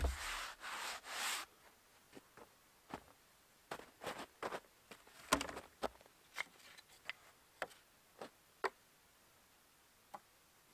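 A gloved hand rubs along a rough-sawn timber beam for about a second and a half. Then come scattered soft knocks and clicks as the beam is carried and laid on a stack of milled lumber.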